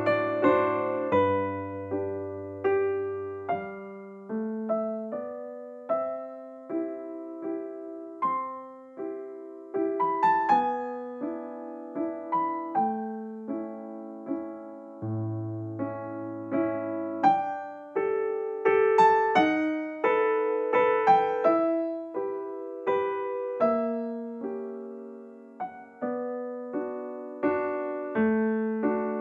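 Background music on a piano-like keyboard: a melody of struck notes over low chords, each note fading after it is played.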